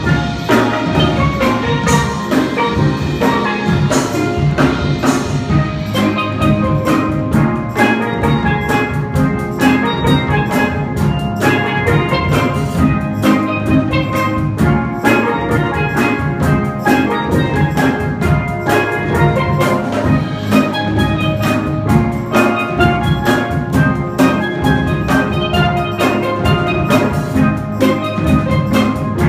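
Steel pan ensemble playing a pop tune, many pans from high lead pans down to the big bass pans sounding quick ringing notes together, with drums keeping a steady beat underneath.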